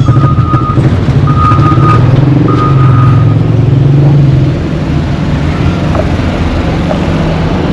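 Heavy road-construction machine running with a low engine rumble while its reversing alarm beeps three times, about a second apart. The rumble grows quieter about halfway through.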